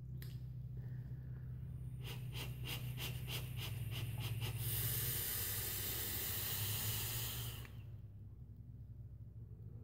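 A long drag on a mechanical vape mod with a dripper atomizer, then a breathy hiss of vapour being exhaled for about three seconds. During the drag comes a run of sharp ticks, about four a second.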